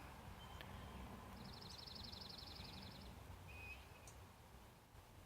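A faint bird trill: a rapid, even run of high dry notes, about a dozen a second, lasting under two seconds, followed by a single short chirp, over quiet outdoor background noise.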